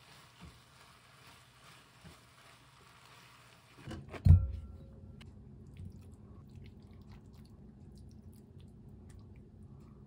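Cabbage stir-fry sizzling in a wok as a silicone spatula stirs it, with light taps. About four seconds in the sizzle stops and there is a loud thump, followed by soft clicks and scraping of the spatula spooning the stir-fry onto rice in a ceramic bowl.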